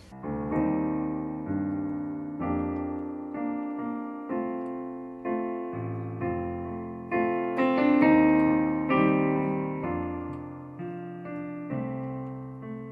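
Piano playing a slow instrumental introduction: sustained chords struck about once a second, each ringing and fading before the next.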